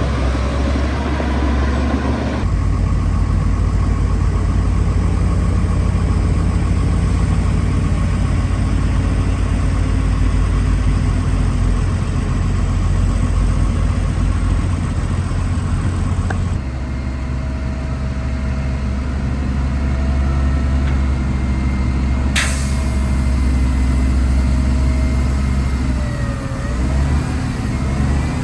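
Heavy construction machinery's diesel engine running steadily with a deep low rumble, the sound changing abruptly twice. A single sharp clank about 22 seconds in, and the engine pitch sliding near the end.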